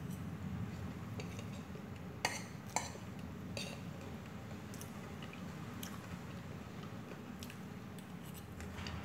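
A metal fork clinking and scraping on a plate while noodles are eaten. There are two sharper clinks a little over two seconds in, about half a second apart, then lighter taps scattered through the rest, over a low steady background hum.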